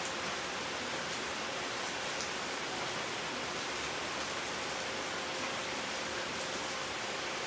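A steady, even hiss that does not change, with a faint steady hum underneath.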